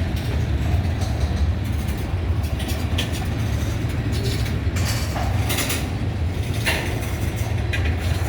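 Freight train rolling by: a steady low rumble of steel wheels on rail, broken by several short sharp clanks and squeals from the passing cars.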